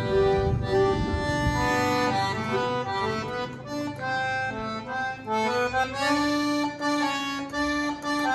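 Accordion played live: a melody of held notes over chords, with heavy low bass notes for the first couple of seconds.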